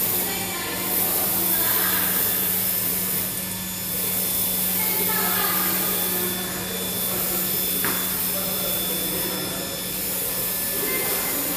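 YD2513-R UV flatbed printer running while it prints ceramic tiles: a steady rushing whir from its fans and suction bed over a low hum, as the UV-lamp print carriage travels across the bed.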